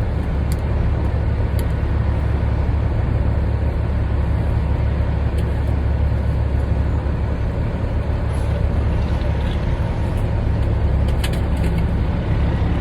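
Semi truck's diesel engine running steadily with a deep low rumble, the truck moving slowly, with a few faint clicks over it.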